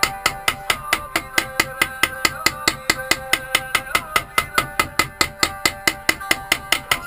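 Small hammer rapidly peening a wire rivet held in a steel bench vise, about five or six quick blows a second, each with a short metallic ring.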